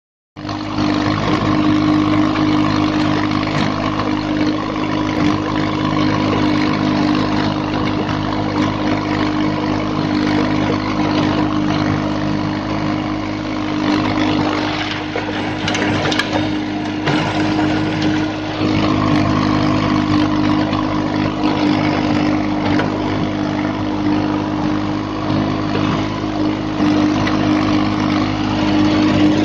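VST Mitsubishi Shakti VT 224 22 HP mini tractor's diesel engine running steadily, easing off slightly about halfway through.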